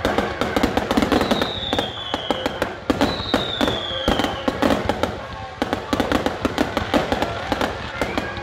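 Fireworks finale barrage: a rapid, continuous run of overlapping bangs and crackles from many shells bursting at once. Two falling whistles sound over it, one about a second in and another about three seconds in.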